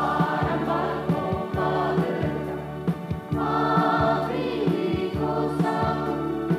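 Garo-language Christian gospel song: a choir singing over band accompaniment with a steady drum beat.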